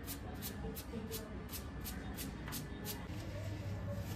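A brush scrubbing a rusty motorcycle exhaust header pipe wet with WD-40, in quick even strokes of about three a second. The strokes stop about three seconds in, leaving a steady low hum.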